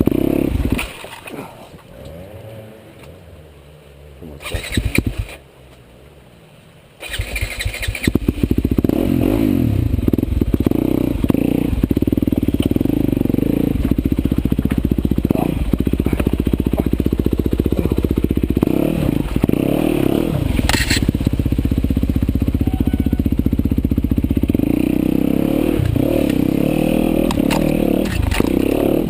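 Trail motorcycle engine running. It drops away about a second in, with one short burst near five seconds, then comes back abruptly about seven seconds in and keeps running at a steady note.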